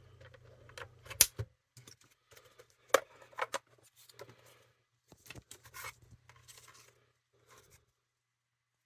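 Small sharp clicks, knocks and rubbing of a portable radio's plastic case being handled, with the loudest clicks about a second and three seconds in. A low hum runs underneath and stops near the end.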